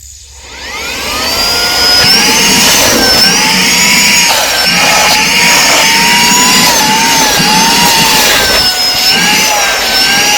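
Cordless handheld vacuum cleaner with a brushless motor switching on and spinning up to a loud, high whine over about a second and a half, then running with a rush of air, its pitch wavering up and down as it works.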